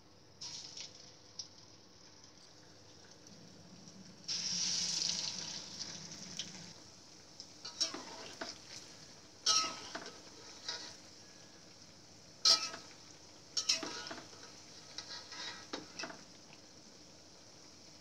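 Cassava dough pieces frying in hot oil in a wok: a steady sizzle that swells into a louder burst of sizzling about four seconds in for some two seconds, then several knocks and scrapes of a metal ladle against the wok as the pieces are turned.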